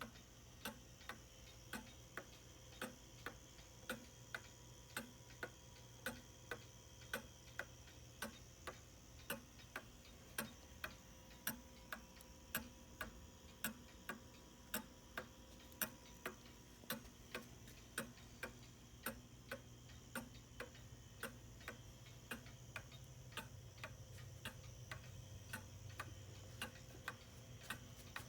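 Antique Black Forest cuckoo clock's pendulum escapement ticking steadily, a little under two ticks a second.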